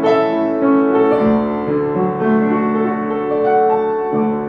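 Yamaha upright piano played solo, a slow melody over sustained chords in D, with new notes struck about once a second and a last chord a little after four seconds in, left ringing.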